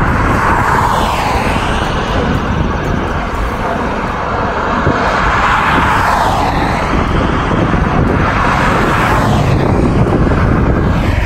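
Large jet aircraft flying low overhead: a steady jet-engine rumble with a roar around the middle of the range that swells and eases a few times.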